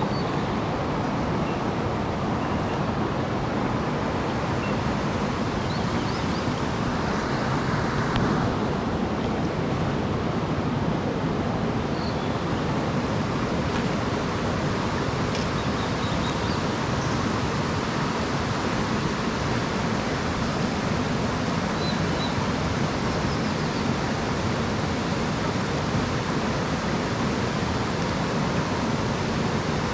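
Mountain stream water rushing steadily, with a slight swell about 7 to 8 seconds in.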